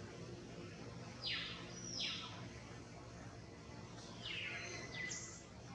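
Short, high-pitched animal calls, each falling sharply in pitch, in two groups about three seconds apart, over a steady low hum.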